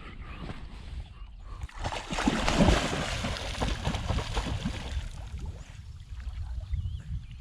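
A dog splashing through water, loudest from about two to four and a half seconds in, over a low wind rumble on the microphone.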